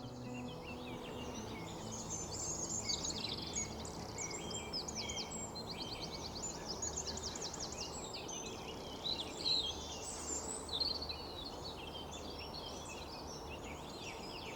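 Several birds singing at once, a busy mix of quick chirps, trills and rapid repeated sweeping notes, over a steady low background hum.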